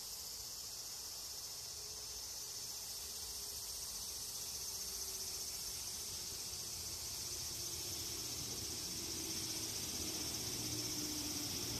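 A steady, high-pitched chorus of insects. From about halfway through, the faint low rumble and hum of an approaching Shinano Railway 115-series electric train rises slowly under it.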